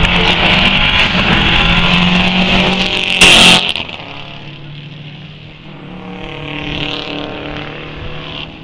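Rally car engines running hard on a tarmac circuit: one car is loud and close, with a brief loud rush as it goes past about three seconds in, then drops away sharply. A second car's engine swells about seven seconds in and fades.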